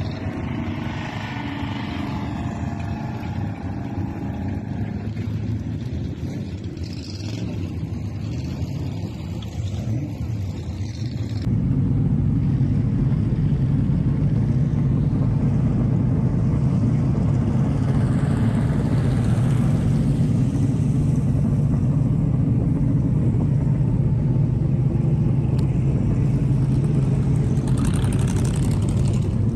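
Stock car engines running as cars lap a short oval in practice, rising and fading as they pass. About a third of the way in, the sound cuts abruptly to a louder, steady low engine noise, and near the end a car passes close by.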